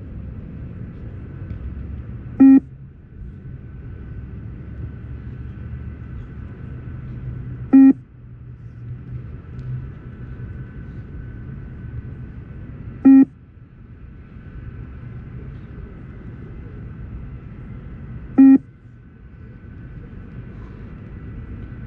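Beep test (multistage fitness test) recording sounding its short electronic shuttle beep four times, evenly about every five and a third seconds; each beep marks when the runner must reach the other end of the shuttle. Between the beeps is a steady low rumble.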